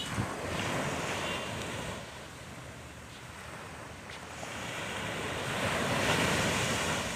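Waves breaking on a sandy beach, the surf swelling louder toward the end, with wind gusting on the microphone.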